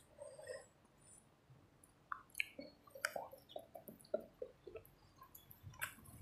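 Faint eating sounds: fingers picking flesh off a curried fish, then chewing with small wet mouth clicks. The sounds come thicker from about halfway.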